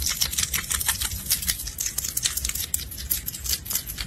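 Hedgehog making rapid, irregular clicking and smacking sounds with its mouth, several clicks a second.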